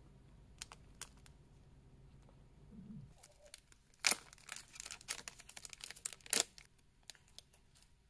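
A thin plastic snack packet handled and then torn open by hand. About four seconds in there is a sharp rip, then crinkling and a second sharp rip a couple of seconds later.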